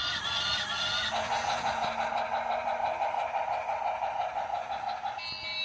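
Battery-powered Fenfa toy train's electronic sound chip playing a horn-like effect. A brief high warbling tone comes first, then a buzzy honking tone holds from about a second in and stops shortly before the end.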